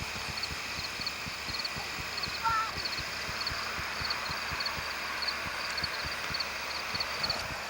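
A pet bird gives one short two-note call about two and a half seconds in. Quick high chirps repeat steadily in twos and threes throughout, with soft irregular low knocks underneath.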